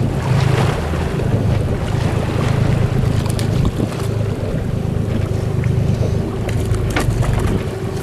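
Boat engine running steadily under way, with wind buffeting the microphone. A few light knocks sound in the middle and near the end.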